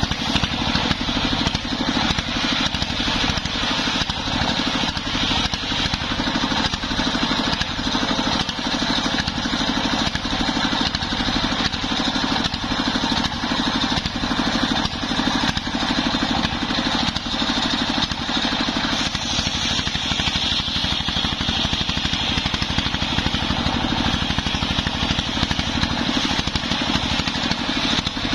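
Single-cylinder stationary diesel engine running steadily, driving a belt-driven circular saw that is cutting lengthwise through a waru log. Over the engine's rapid even firing there is a higher band of cutting noise from the blade.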